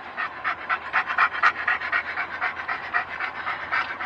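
A dog panting rapidly, about five pants a second, inside a moving car's cabin, with a faint low car hum beneath.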